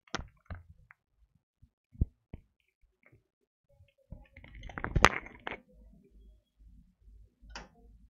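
Scattered clicks and knocks of handling and movement noise, with a louder cluster of knocks about five seconds in, followed by a faint low pulsing that repeats about three times a second.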